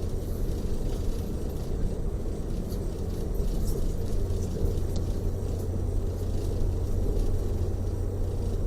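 Steady low rumble of a tour coach's engine and tyres heard from inside the passenger cabin while it drives, with faint light ticks over it.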